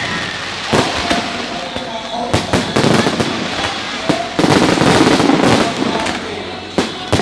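Fireworks display: a string of sharp bangs from bursting shells, with a denser, louder run of bangs about four and a half seconds in.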